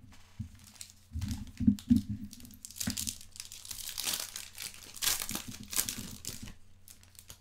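Shiny plastic-foil wrapper of a Select soccer trading card pack crinkling and tearing open, with a few dull knocks of cards being handled on the table in the first couple of seconds.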